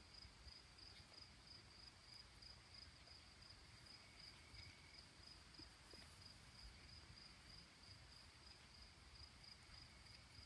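Near silence with faint, steady insect chirping: a high, even pulsing trill, about four pulses a second.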